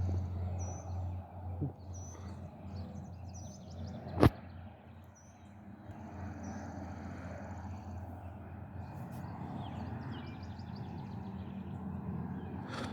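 Small birds chirping every few seconds over a steady low hum of outdoor background noise, with one sharp click about four seconds in.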